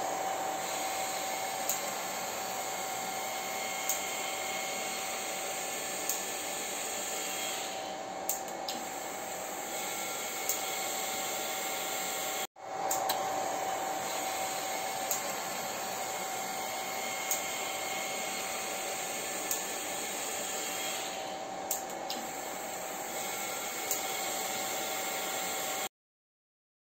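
Steady whir of an electric blower motor, with a light click about every two seconds. It cuts out for a moment about halfway, starts again, and stops abruptly near the end.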